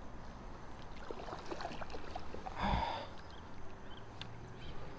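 Light scattered knocks and rattles from a plastic kayak and the angler's gear as he shifts in it, with one louder knock about halfway through.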